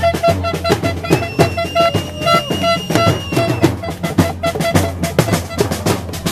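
Street protest drumming: marching snare drums and a hand drum beaten in a fast, steady rhythm.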